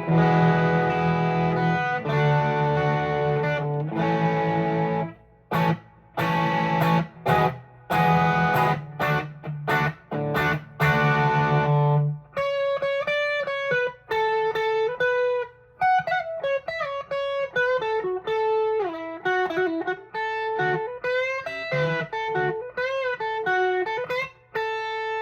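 Electric guitar played through a Tube Screamer-style overdrive pedal into a small Vox tube amp, with a light crunch. It plays held chords, then short choppy chord stabs, then single-note lead lines from about halfway in.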